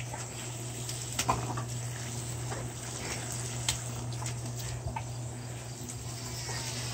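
Garden hose spray nozzle hissing steadily as the jet of water splashes onto a dog and the grass, with a few faint clicks.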